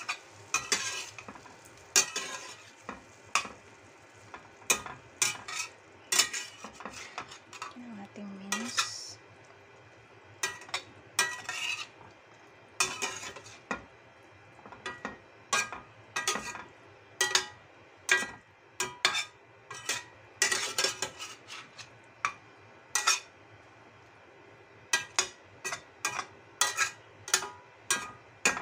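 A slotted stainless steel spatula stirring minced pork and eggplant in a stainless steel frying pan: irregular metal-on-metal clinks and short scrapes, several a second at times, with brief pauses between bursts of stirring.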